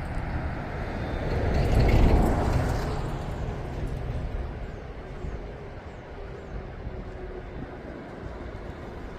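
Sea waves breaking on the shore: one wave swells and crashes about two seconds in, then washes out into a steady surf, with wind buffeting the microphone.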